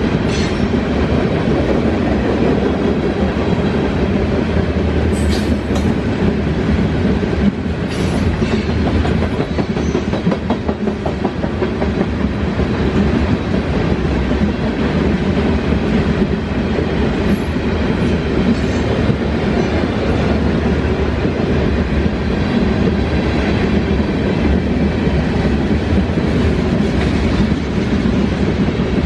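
Freight train cars rolling past, a steady loud rumble of wheels with clickety-clack over the rail joints and a few brief high squeaks.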